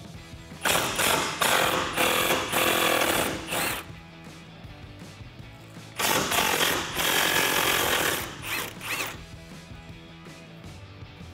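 Milwaukee Fuel cordless impact wrench hammering out two 15mm bolts from a truck's fog-light support brace, in two bursts of about three seconds each.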